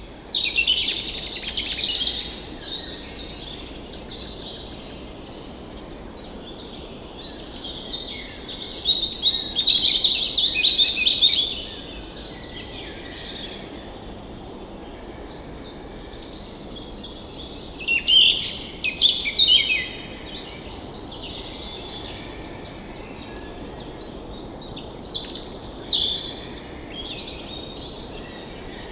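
Several songbirds singing and calling in varied, overlapping phrases, with louder bursts of song at the start and again several times, over a steady low rush of flowing stream water.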